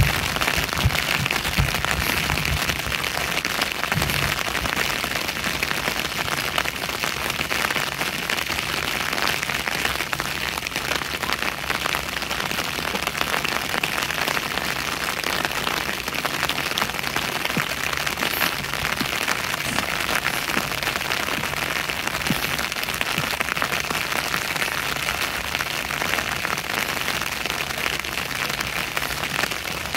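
Steady rain falling, a dense even patter of raindrops, with a few low thuds in the first few seconds.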